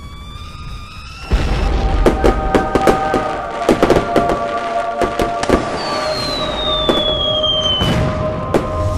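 Edited-in magic-blast sound effect: a sudden deep boom about a second in, then a run of sharp crackles and bangs like fireworks over held music tones. Near the end a high tone glides down.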